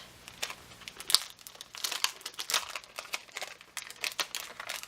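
Packaging crinkling as a small adhesive patch is handled, in irregular runs of crackles.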